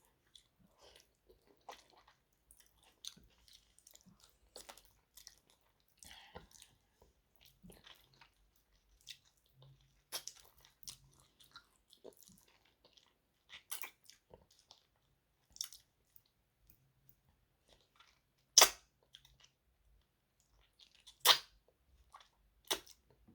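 Close-up eating sounds of mutton curry with rice: steady chewing with wet mouth noises and small crunches and clicks. Two much louder sharp cracks come near the end, about three seconds apart.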